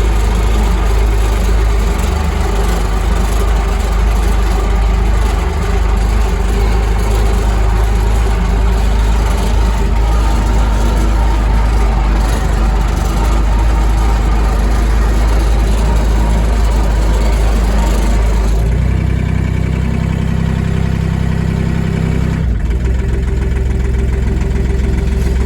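Tractor engine running steadily, its note shifting about 19 seconds in and again a few seconds later.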